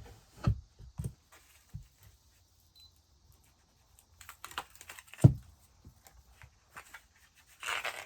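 Hands handling craft items on a table: a few short knocks as things are set down or bumped, the loudest about five seconds in, with light rustling and a louder rustle near the end.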